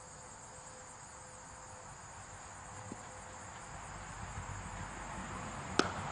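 Steady high-pitched chirring of insects. Near the end comes a single sharp crack as the bowled cricket ball reaches the batter.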